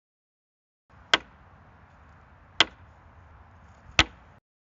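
Three sharp impacts evenly spaced about a second and a half apart, over a faint hiss that starts and stops abruptly around them.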